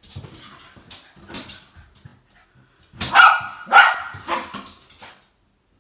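A young Schnoodle barking: two sharp barks about three seconds in, a weaker third shortly after, with quieter scuffling before.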